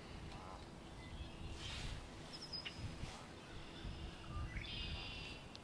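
Marsh birdsong: a red-winged blackbird sings a short buzzy trilled song a little before the end, with other high chirps scattered through. A faint Canada goose honk comes about half a second in, over a low steady rumble.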